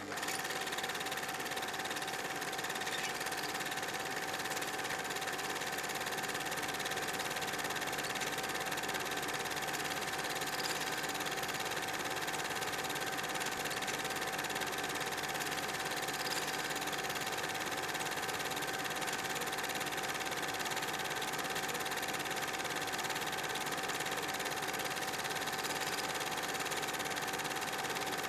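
Film projector running with a steady mechanical whirr and fine clatter, the sound of an old silent-film reel playing.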